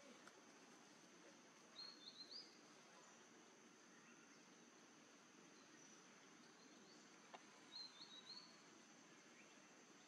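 Faint outdoor ambience: a bird gives two short bursts of quick chirping notes, about two seconds in and again about eight seconds in, over a steady high insect hum.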